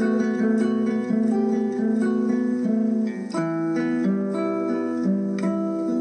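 Background instrumental music: a slow melody of plucked string notes, about two new notes a second, each ringing on before the next.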